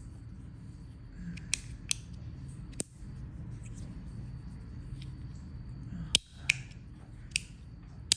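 Stainless steel fidget slider being worked by hand, giving sharp metallic clicks at uneven intervals, with a pause of about three seconds in the middle. Its parts keep popping off as it is slid.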